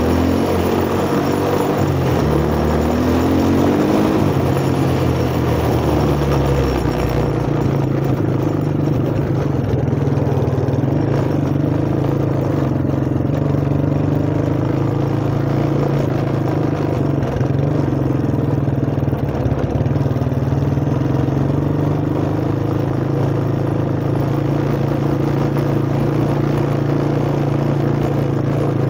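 1985 Suzuki four-wheeler's engine running; its pitch climbs over the first few seconds as it speeds up, then holds steady.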